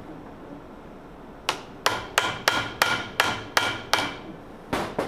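Hammer blows on metal with a short ringing after each: about eight sharp strikes roughly three a second, a brief pause, then two more near the end. It is hammering at a two-stroke golf cart engine whose piston is seized in the cylinder.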